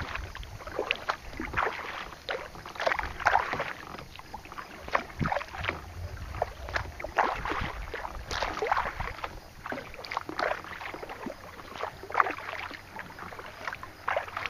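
Kayak paddling: the paddle blades dip and splash in the water with irregular strokes about a second apart, and water sloshes against the hull.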